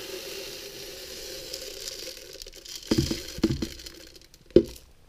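Unhulled hemp seeds pouring into a plastic blender jar, a steady hiss that fades out over the first few seconds, followed by three sharp knocks.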